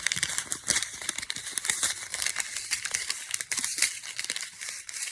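Plastic candy wrapper crinkling continuously as it is handled and worked open, with many small irregular crackles.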